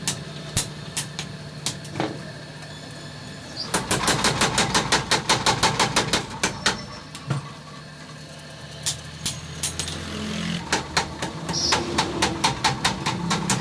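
Hammer blows on hot iron at the forge, coming in two fast runs of about five strikes a second, with scattered single strikes between. A steady motor hum runs underneath.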